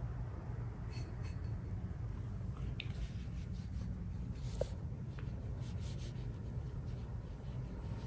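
Faint scratchy strokes and light taps of a Chinese painting brush on xuan paper, laying in an ink branch, over a low steady hum.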